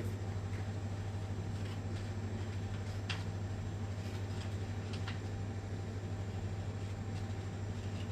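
Steady low hum of room tone with a few faint clicks.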